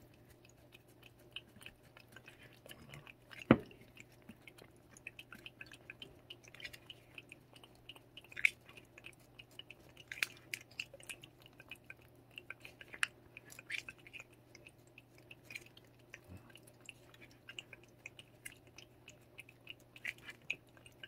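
A cat licking paste from a squeeze-tube treat held to its mouth: soft, irregular wet licking clicks. One sharp knock about three and a half seconds in, over a faint steady low hum.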